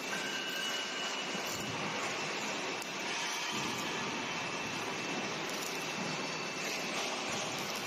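Steady workshop din of machinery and air noise, even and unbroken, with a faint high whine running through it.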